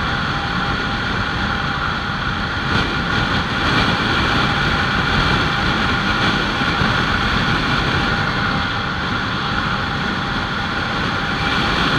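Kawasaki Ninja 300's parallel-twin engine running steadily at cruising speed, with wind rushing over the microphone.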